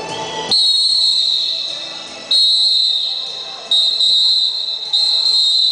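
Music cuts off about half a second in, then a shrill whistle sounds four times, each blast starting sharply and fading over a second or so.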